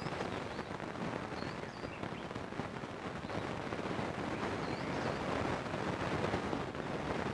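Steady crackling, rain-like noise, with a few faint, short high chirps from a songbird scattered through it.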